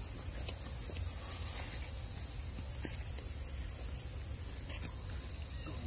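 Steady, high-pitched drone of a forest insect chorus, with a low rumble beneath it.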